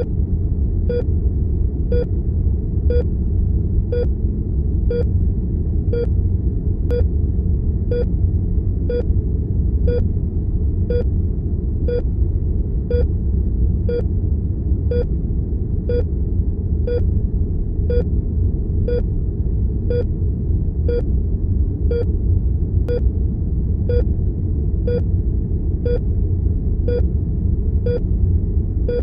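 Heart monitor beeping about once a second, each a short mid-pitched tone, over a steady low rumble of room tone.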